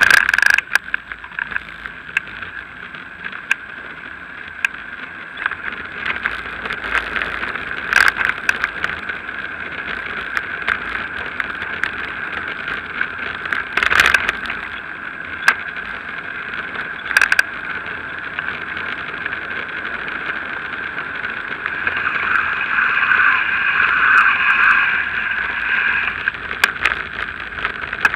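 Steady ride noise from a camera mounted on a moving bicycle on a paved path: wind and rolling noise, with several sharp knocks as the bike goes over bumps. The noise grows louder for a few seconds near the end.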